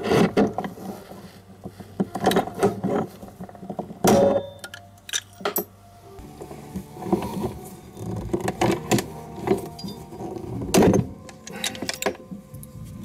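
Irregular clicks, knocks and rattles of a metal tool and its fittings being handled and worked against a motorcycle's plastic top case, with louder knocks about four seconds and eleven seconds in.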